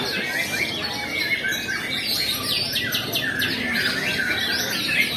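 Many caged songbirds singing at once: a dense, overlapping mix of fast chirps, trills and gliding whistles.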